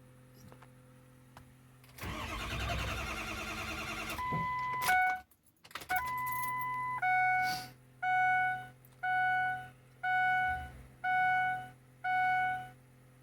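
Starter cranking the 6.0 engine for about two seconds without it catching, then an electronic warning chime: a steady tone, then six evenly spaced beeps.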